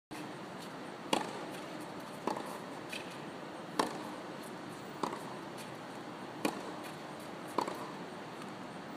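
Tennis ball being hit back and forth in a practice rally: a sharp pock of racket on ball about every second and a quarter, alternating louder and softer, over a steady outdoor hiss.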